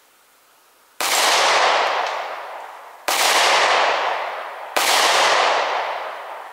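Three slow, deliberate shots from a 9mm pistol, the second about two seconds after the first and the third under two seconds later. Each shot trails off over about two seconds.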